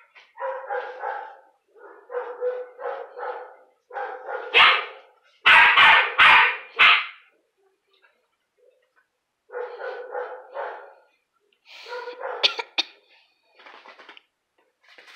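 Belgian Malinois puppy barking in several quick runs of high yaps with short pauses between them; the loudest barks come about halfway through.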